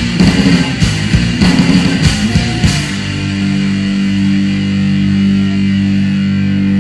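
Loud live rock band playing: hard, fast drumming and guitar for about the first three seconds, then the band stops hitting and lets a single chord ring on steadily.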